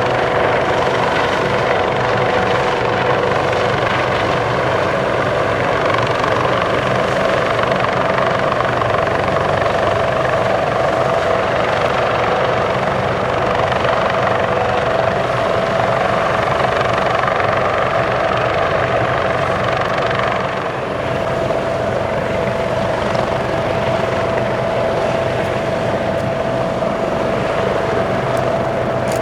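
Airbus AS365N3 Dauphin twin-turbine helicopter flying, rotor and turbine noise with a steady high-pitched tone running through it; the sound dips briefly about two-thirds of the way through.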